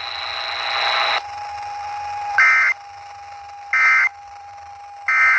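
Three short bursts of SAME digital data tones from a NOAA Weather Radio, about 1.3 s apart: the end-of-message code that closes the Emergency Alert System severe thunderstorm warning. The first second holds a steady hiss with a faint high whine, and a steady mid-pitched tone sounds between the bursts.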